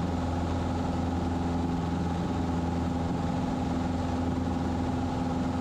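Cessna 150's Continental O-200 four-cylinder engine and propeller running steadily at climb power, heard from inside the cabin.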